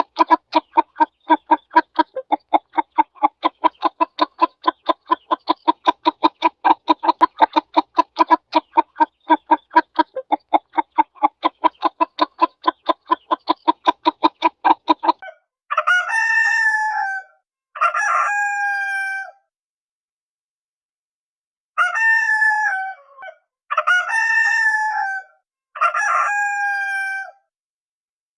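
A hen clucking in a rapid, even run of about four clucks a second, stopping about halfway through, followed by a rooster crowing five times, each crow about a second and a half long with a falling end.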